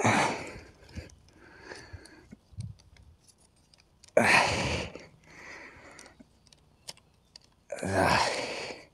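Wooden sticks of a stick-cage trap scraping and creaking as they are pressed and forced together by hand, in three short bursts with small clicks of wood between them.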